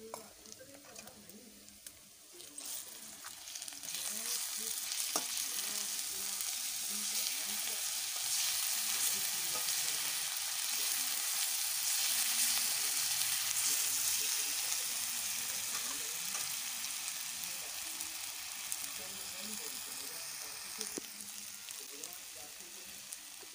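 Chopped onion with ginger and garlic sizzling in hot oil in an iron kadai, stirred with a steel spatula. The sizzle swells about three to four seconds in and eases off near the end.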